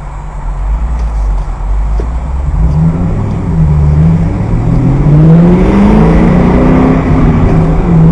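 Car engine heard from inside the cabin, running low at first, then accelerating hard from a stop about two and a half seconds in, its pitch climbing and dropping back as it shifts up through the gears.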